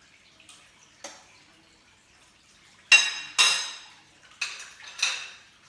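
A spoon or utensil knocking against the rim of a dish, with a faint click about a second in and then four sharp, ringing taps, the first two loudest, as dried herbs are knocked off into the mixture.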